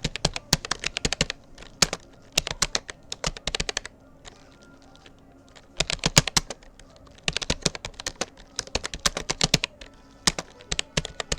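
Rapoo computer keyboard being typed on at about 40 words per minute, keys clicking in quick runs, with a pause of about two seconds near the middle.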